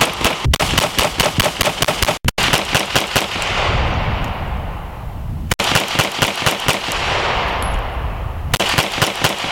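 Semi-automatic pistols fired in fast strings of shots, several rapid runs cut together, with the report echoing and dying away between strings.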